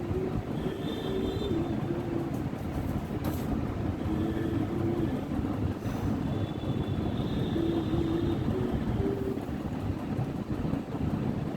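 Steady low rumbling noise with short squealing tones that come and go, a higher-pitched one twice.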